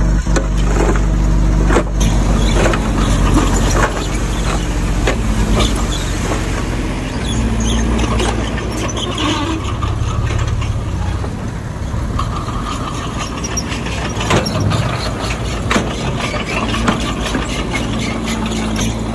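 Bulldozer's diesel engine running steadily while working, with frequent metallic clanks and knocks from the machine; the engine note shifts about seven seconds in.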